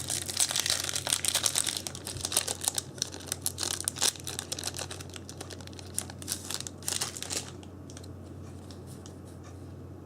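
Foil booster-pack wrapper crinkling and tearing open, with cards clicking and rustling as they are handled. The crackling dies down about seven and a half seconds in, leaving a steady low hum.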